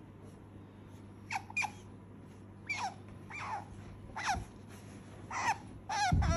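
Asian small-clawed otter squeaking: about eight short, high calls, each falling in pitch, starting about a second in. A loud thump near the end.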